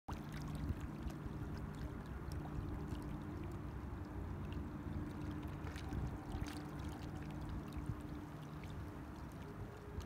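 Water splashing and trickling, with scattered sharp drips and splashes over a steady low hum.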